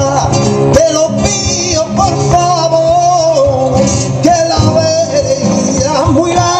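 A man singing a flamenco bulería in long, wavering, bending phrases over two acoustic guitars strumming sharp chords.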